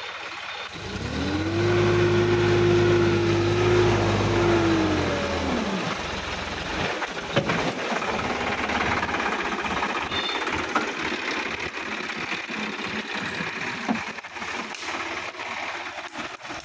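Sonalika DI-50 RX tractor's diesel engine revving up about a second in, holding high revs for some four seconds, then dropping back. After that it runs on under load as a rougher rumble with scattered knocks and rattles.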